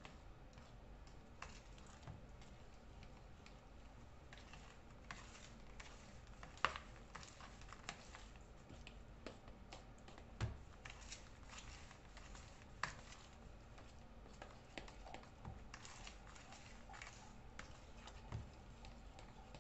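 Thick batter being stirred in a plastic mixing bowl: faint, irregular clicks and taps, with a few sharper knocks.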